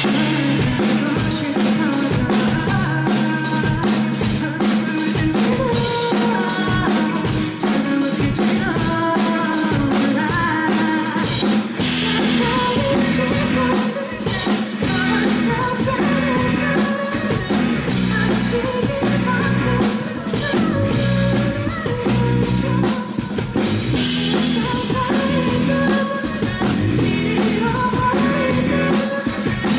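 Live rock band playing a song: a drum kit keeps a fast, steady beat over bass and guitar, with a singing voice.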